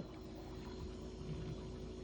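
Kenmore refrigerator's inverter-driven compressor running with a faint, steady hum, together with the fridge fan: the compressor has started up again on its replacement inverter circuit card.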